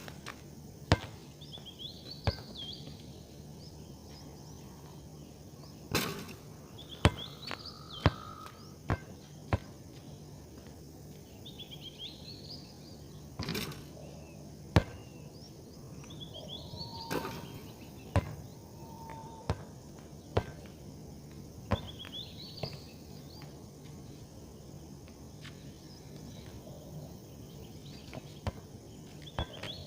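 A bird repeating a short, high chirping phrase that rises and falls, about every four to five seconds, over a faint low hum. Sharp clicks or taps, louder than the bird, come at irregular moments throughout.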